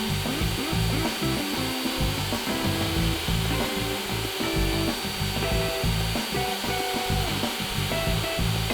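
Background music: a melody of held notes that step from pitch to pitch over a busy, pulsing low end.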